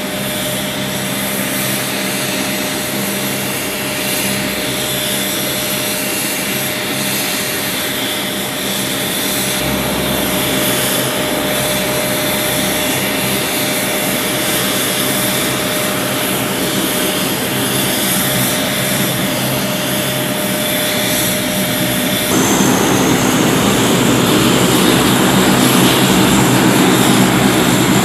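C-130-type four-engine turboprop aircraft with four-bladed propellers running on the ground: a steady engine whine over a droning hum. It grows louder and rougher about three-quarters of the way through.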